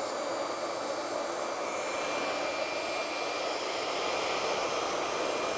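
Electric round-knife cloth cutter running steadily as its spinning circular blade cuts through fabric: an even motor whir with a thin, steady high whine.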